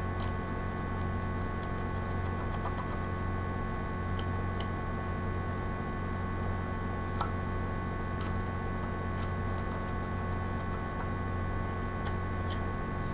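Knife blade carving a small piece of wood: light clicks of the blade on the wood, a quick run of them in the first couple of seconds, then single ones every second or so, over a steady low hum.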